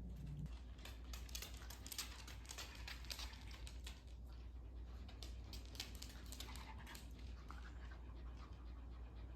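A dog panting softly, with small irregular clicks and rustles.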